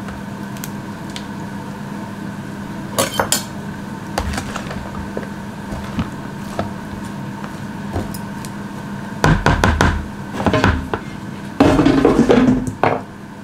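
A metal spoon scraping and clinking in a plastic food container as crumbled falafel and salad are mixed, with a few loud clattering scrapes in the second half. A steady hum runs underneath.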